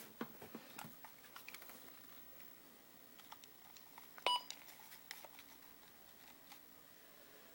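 A single short electronic beep about four seconds in, over a quiet background with scattered faint clicks and ticks.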